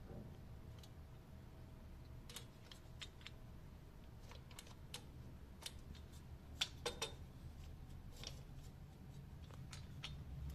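Scattered light clicks and taps of small threshold hardware being handled and fitted, a few louder ones about two-thirds of the way in, over a faint steady low hum.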